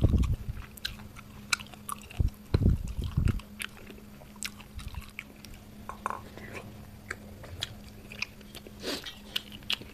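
Close-miked eating of a curried fish head by hand: chewing, biting and crunching with wet mouth clicks, and heavier low thumps at the start and around three seconds in. A steady low hum runs underneath.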